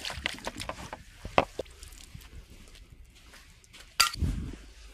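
Things being crushed and broken: a few crackling clicks, then one loud sharp crash about four seconds in, with a brief ring.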